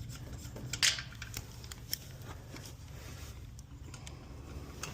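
A few scattered small clicks and handling noises, with one sharper click about a second in, over a steady low hum.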